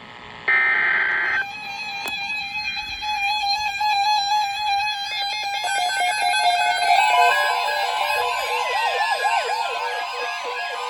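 NOAA Weather Radio emergency alert: a one-second burst of screeching digital header tones, then several weather radio receivers sounding their alarms together in overlapping repeated beeps. About seven seconds in a steady alert tone and swooping siren-like chirps join in.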